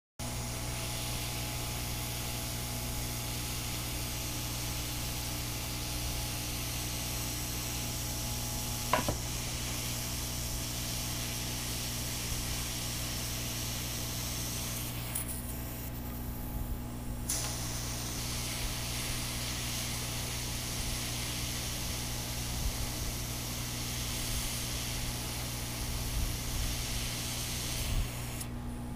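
Hot-air rework station blowing a steady hiss of hot air onto a circuit board, with a steady low hum under it, to melt the solder on surface-mount parts. There is a single sharp click about nine seconds in, and the hiss dips for about two seconds halfway through.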